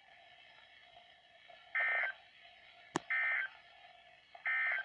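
NOAA Weather Radio EAS/SAME end-of-message data: three short, identical bursts of high-pitched digital warble, about a second apart, heard through a weather radio's speaker and marking the end of the severe thunderstorm warning. A single sharp click of static comes just before the second burst.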